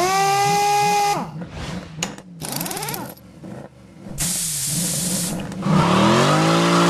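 Sound-effect montage for a workshop logo intro: a power tool whirs up to speed and runs for about a second, then come short clicks and bursts, a long burst of hiss, and an engine revving up near the end, all over a low wavering drone.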